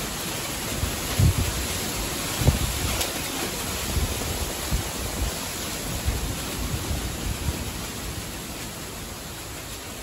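Summer wind blowing through the tree canopy, with leaves rustling in a steady hiss. Low gusts buffet the microphone in the first few seconds, and the wind eases gradually toward the end.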